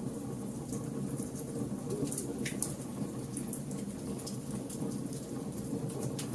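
Wood fire burning: frequent sharp crackles and pops from the logs over a steady low rush of the flames, with one stronger pop about two and a half seconds in.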